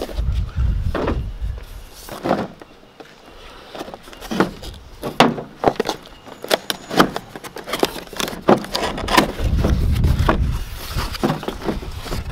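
A cardboard box being handled and opened by hand: lid flaps pulled loose, with many sharp clicks, taps and scrapes of cardboard. A low rumble runs for a second or two about three-quarters of the way through.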